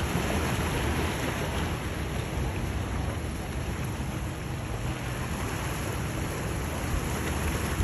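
Wind buffeting the microphone over the steady drone of a powerboat's outboard engines and the wash of choppy water.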